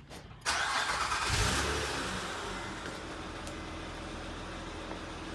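2007 Honda Odyssey's V6 engine starting: it catches suddenly about half a second in, runs loudest for about a second, then settles to a steady idle.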